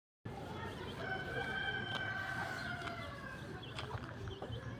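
A rooster crowing once: one long call of about two seconds that sags slightly in pitch as it ends. A steady low background hum runs underneath, with a few faint clicks near the end.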